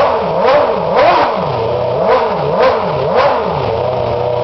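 Red Bull Formula One car's engine revved in quick throttle blips, about two a second, each rising from idle and dropping straight back. There is a short pause in the middle, and it settles to idle near the end.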